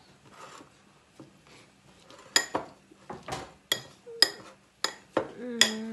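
Metal fork clinking against a ceramic bowl while mashing and mixing a soft garlic-butter and cheese paste. It is quiet for the first couple of seconds, then about eight sharp clinks follow at an uneven pace.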